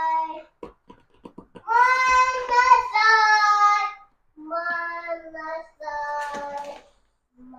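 A young child singing wordless-sounding held notes in several phrases with short breaks between them, with a few faint clicks in the first second or so.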